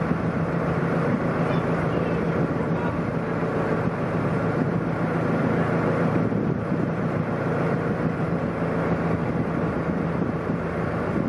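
Narrowboat engine running steadily at low speed, a continuous low drone.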